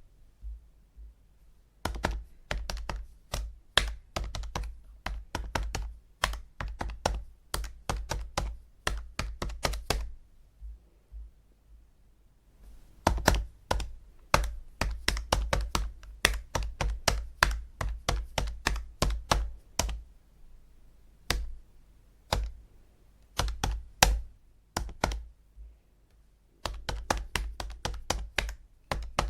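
Calculator buttons being pressed in quick runs of sharp clicks, several a second, with short pauses between runs.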